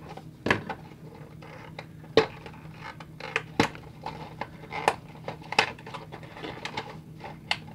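Hands handling a small cardboard toy box: the end flap opened and the inner cardboard tray slid out. Irregular cardboard clicks and taps, about half a dozen sharp ones, over light scraping.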